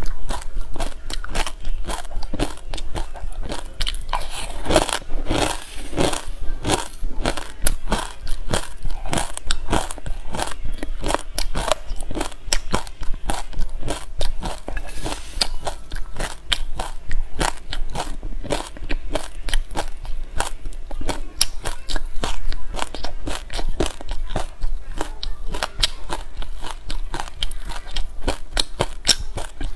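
Dry raw seeds being crunched and chewed by the mouthful: a fast, unbroken run of small crisp cracks.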